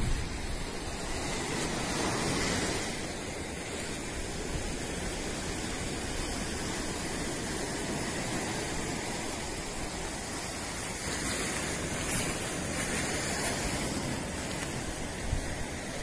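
Steady rushing noise of sea surf washing on the shore, swelling a little about two seconds in and again around twelve seconds in.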